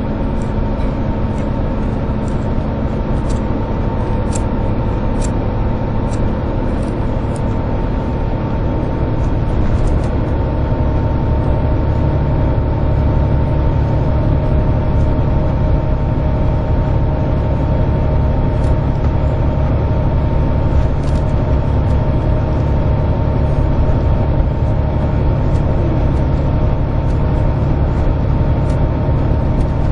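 Volvo B11RT coach's six-cylinder diesel engine and road noise heard from inside the cabin while cruising at speed, a steady drone that grows slightly louder about ten seconds in.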